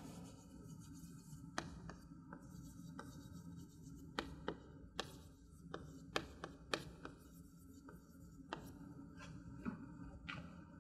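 Chalk writing on a chalkboard: an irregular string of sharp taps and short scratchy strokes as words are written, faint overall.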